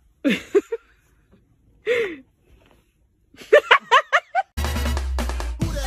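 A person's voice: two short exclamations, then a quick run of short rising laughs about three and a half seconds in. Upbeat background music cuts in near the end.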